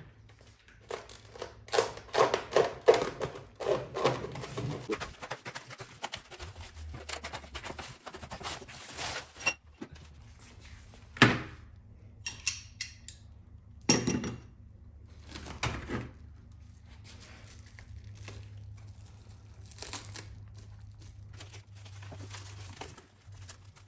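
Unboxing new Jeep inner fenders: cardboard and packing material rustling and crinkling, then a few sharp thunks as the parts and box are handled, the loudest about eleven seconds in.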